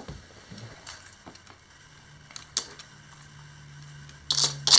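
Hard plastic treat-dispensing toy being nudged around by a small dog: a few light clicks and rattles, then a louder clatter of rattling near the end.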